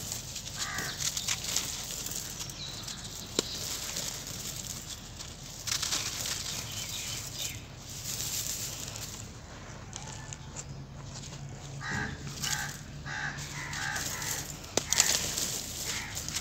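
Dry, dusty dirt clods crumbled by hand, with dust and grit pouring and pattering onto a round wire mesh sieve in a steady gritty hiss with small clicks. A bird calls briefly near the start and again about five times near the end.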